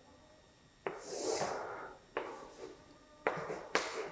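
Chalk drawing lines on a blackboard: about four strokes, each starting with a sharp tap and dragging on in a short scrape.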